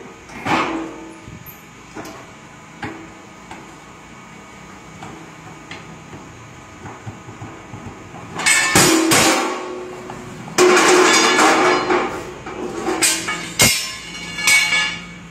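Truck tyre changing machine working on a truck wheel: a few light knocks, then, from about halfway in, several loud bursts of metallic clanking and scraping, the longest about a second and a half, with a sharp knock near the end.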